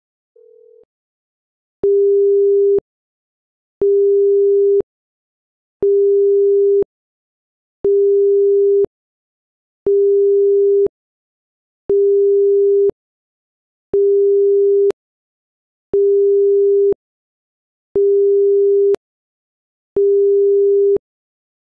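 Electronic alert beeps from an earthquake monitor: a brief faint tone, then ten loud one-second beeps at one steady pitch, one every two seconds. They signal a newly reported earthquake.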